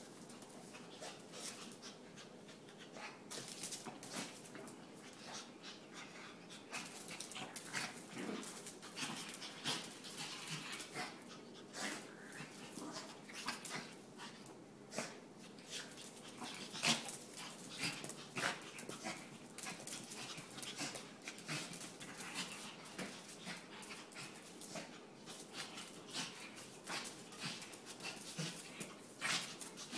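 Two Shih Tzu puppies play-fighting on a tile floor: many quick clicks and scuffs of claws and paws on the tiles, busier from about seven seconds in, with small puppy noises among them.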